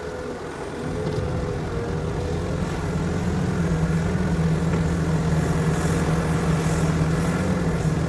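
Heavy construction machine's diesel engine running steadily under load, with a strong low drone that grows louder about a second in and again around three seconds in.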